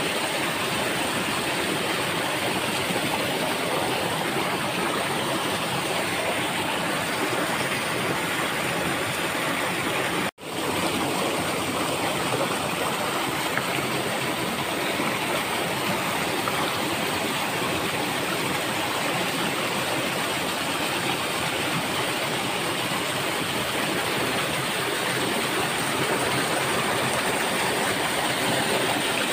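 Rushing stream water pouring over rocks in a small cascade: a steady, full splashing hiss. It cuts out for an instant about ten seconds in.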